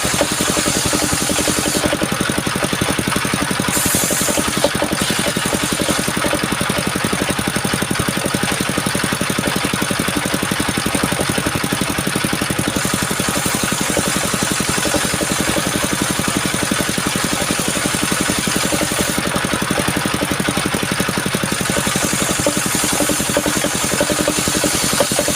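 Engine of a homemade mobile sawmill running steadily with an even, rapid throb.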